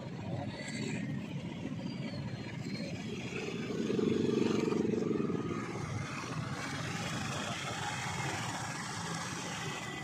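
Motorcycle and truck engines running in slow traffic, a steady mix of engine noise. One nearby engine grows louder and more pitched for a couple of seconds about four seconds in, then drops back.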